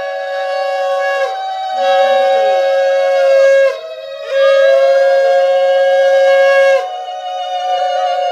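Several conch shells (shankh) blown together in long held notes, each dipping in pitch as the breath runs out, with a brief break about four seconds in.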